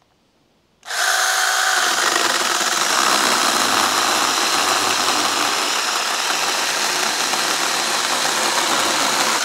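Mini cordless electric chainsaw starting about a second in and running steadily as it cuts through a tree branch, then stopping at the very end.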